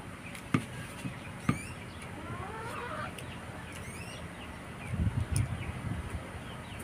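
Chickens clucking and small birds chirping in the background. Two sharp clicks come in the first second and a half, and a run of low thumps comes around five seconds in, from eating by hand at the table.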